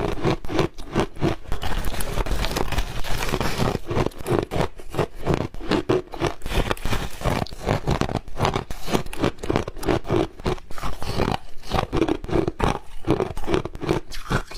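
Ice being bitten and chewed close to the microphone: rapid, repeated crunches of ice breaking between the teeth, several a second and without pause.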